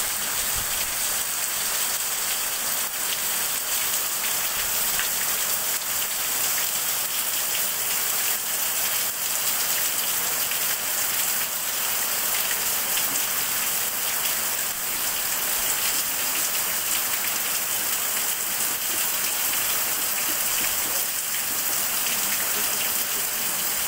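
Heavy rain falling in a steady downpour, with runoff streaming off a roof edge onto the concrete and ground below.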